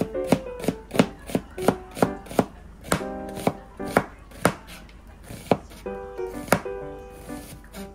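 Kitchen knife thinly slicing an onion on a plastic cutting board: sharp taps of the blade hitting the board about three times a second, slowing to about once a second in the second half.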